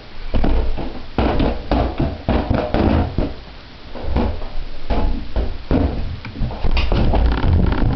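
A large rubber balloon being whacked again and again with a back scratcher: irregular taps and thumps, mixed with heavy footsteps thudding on the floor as he chases it.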